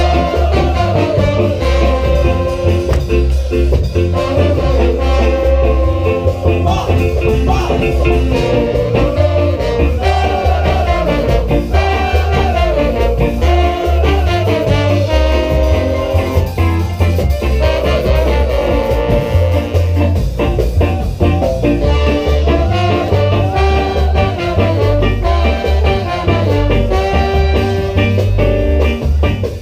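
Live ska band playing an instrumental: trombone and trumpet carry the melody over guitar, keyboard, drums and a heavy pulsing bass line.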